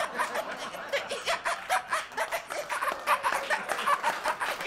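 Audience laughing.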